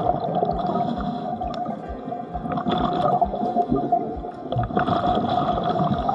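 Underwater sound recorded through a camera's waterproof housing: muffled, gurgling water noise with a steady hum and low thumps about twice a second.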